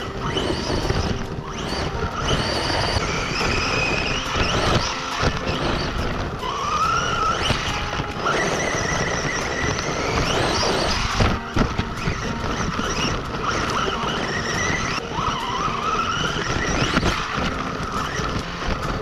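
Electric RC monster truck driving hard: a motor and gear whine that rises and falls in pitch again and again with the throttle, over the noise of its tyres on dirt and gravel.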